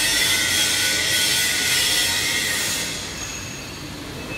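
Compressed air hissing loudly from a pneumatic corner fixing machine for HVAC duct corners. The hiss dies away about three seconds in.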